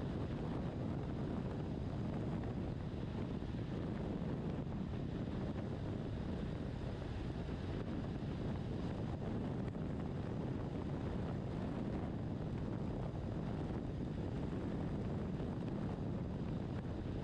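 Steady wind noise on the microphone over the sound of a BMW R1200RT motorcycle riding at highway speed, with no change in pitch or level.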